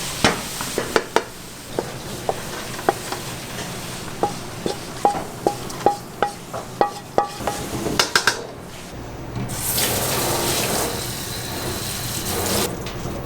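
Kitchen work: a metal utensil clinks sharply and repeatedly against metal cookware, each strike ringing briefly, then a water tap runs for about four seconds near the end.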